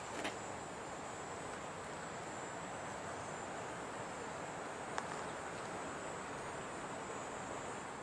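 Steady outdoor bush ambience: a high, continuous insect chirring over an even background hiss, with a single faint click about five seconds in.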